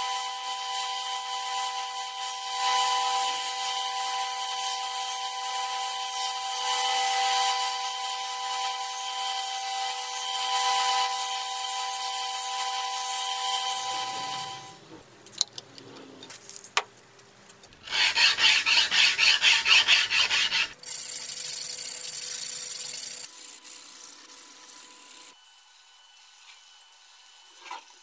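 Workshop tool work on an old chef's knife: a power tool running with a steady whine for about the first half, then a few sharp clicks and a short burst of fast rasping hand strokes of abrasive on metal, tailing off quieter near the end.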